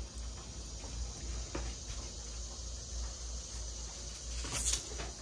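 A paring knife slicing a raw onion held in the hand, with slices dropping into broth in a slow cooker: a few soft cuts and clicks, the clearest near the end, over a steady faint hiss.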